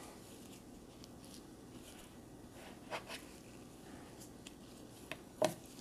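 Faint handling sounds of a plastic scoop working stiff, chilled cookie dough in a plastic mixing bowl and gloved hands shaping it: a few soft scrapes and taps, a couple about halfway through and a couple near the end, over quiet room tone.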